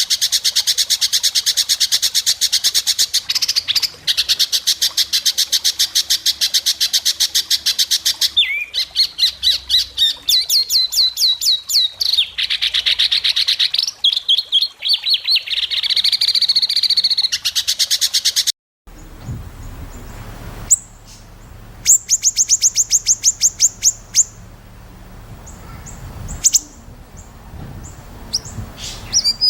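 White-rumped shama singing long runs of sharp, very fast repeated notes, the rapid bursts ('besetan') prized in songbird contests. About two-thirds of the way through the sound cuts off suddenly; after that, quieter song with one short rapid trill plays over a low hum.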